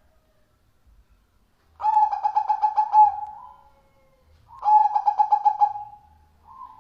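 Zebra dove (perkutut) cooing: two phrases of rapid, clipped coo notes about three seconds apart, with a short faint note near the end.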